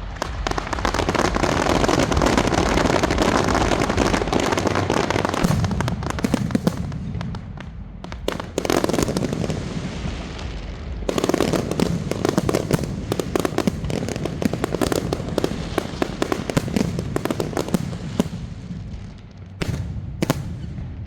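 Firecrackers and fireworks going off in a dense, continuous crackle of rapid bangs. It eases briefly twice, restarts, and has a few louder single bangs.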